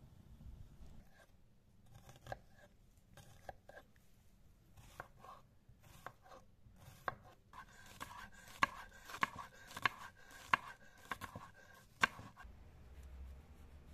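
Kitchen knife chopping red onions on a stone slab, the blade knocking sharply on the stone. The strokes are scattered at first, then come louder and more regular, about one to two a second, in the second half.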